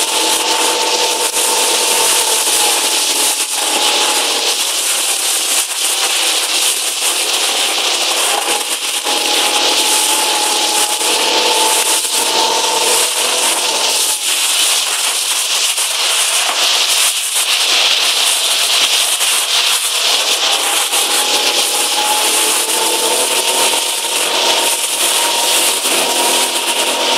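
RS800 sailing dinghy underway: a loud, steady hiss of water rushing past the hull and wind over the camera, with a high humming whine that fades in and out and drifts slightly in pitch.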